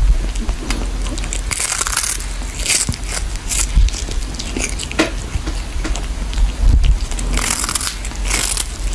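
A cat gnawing and crunching on a small fish held in its paws, with irregular crunchy bites.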